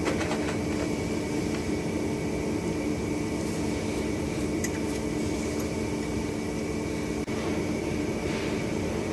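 Steady machine hum of a welding shop, with a few faint clicks.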